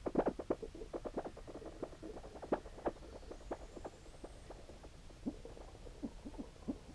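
Glitchy output of an OBNE Float pedal feeding a Walrus Audio Fable: a stream of short, irregular blips and pops, densest in the first three seconds, with a faint thin rising whistle in the middle.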